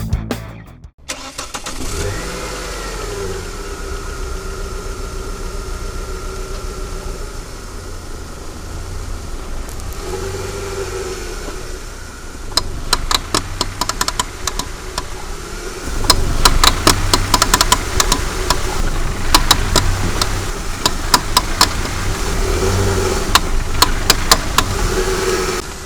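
Renault Safrane 2.5-litre petrol car with its engine running; from about halfway through, bursts of rapid clicking and crackling come from the worn outer CV joint as the wheels are turned. The joint is crunching from wear in its cage and balls.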